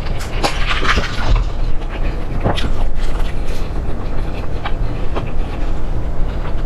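Close-miked chewing and eating noises: scattered wet clicks and crunches over a steady low rumble.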